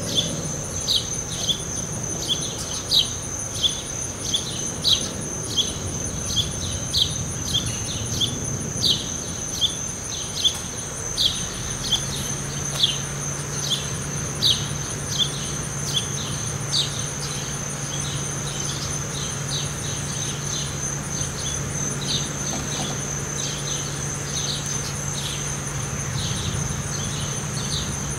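Steady high-pitched insect drone, with a bird repeating a short falling chirp every half second or so; the chirps thin out and fade after the middle. A low steady hum comes in partway through.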